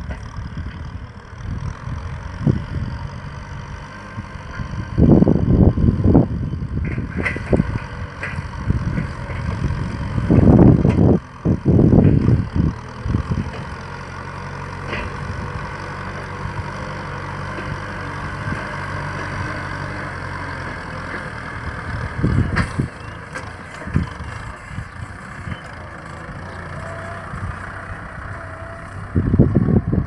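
Kubota M6040 SU tractor's four-cylinder diesel engine running steadily under load while pulling a disc plough through a dry rice field. Several loud low rumbling buffets of wind on the microphone break in over the engine sound.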